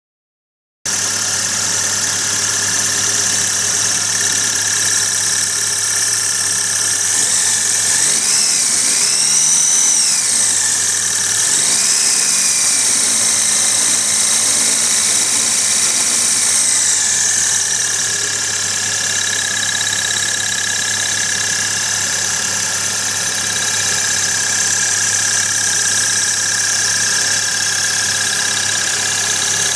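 Kia Sportage's 2.0 SOHC engine running with a belt-driven York 210 air compressor, a steady machine sound with a high whine. Between about eight and seventeen seconds the pitch swings up and down a few times, then settles.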